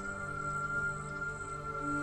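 Soft new-age background music: a slow chord of sustained notes held steadily.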